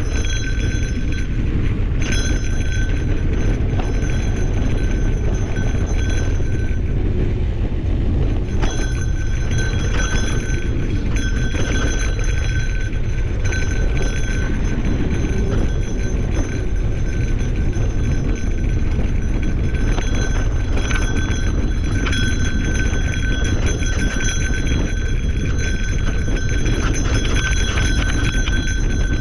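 Wind rushing over the microphone of a camera riding on a mountain bike on singletrack, with scattered knocks and rattles from the bike over the trail and a steady high whine that drops out briefly about seven seconds in.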